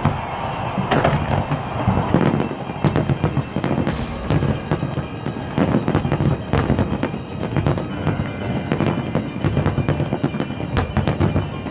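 Aerial firework shells bursting in quick, irregular succession, with many sharp bangs overlapping one another, over steady music.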